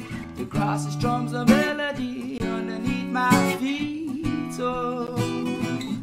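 Background music: an acoustic guitar song, strummed, with a sung melody line gliding over the chords.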